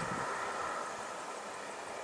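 Steady outdoor background hiss, even and without distinct events.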